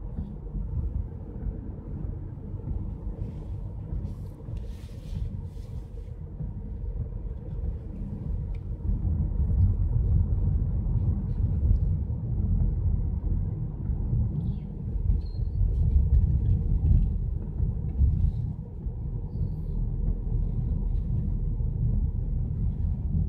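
Low, steady road rumble inside a moving car's cabin, from tyres and engine, growing louder about eight seconds in.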